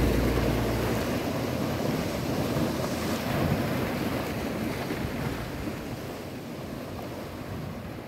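Sea waves breaking and washing over rocks, with wind on the microphone, slowly fading out. The last low note of a song dies away in the first second.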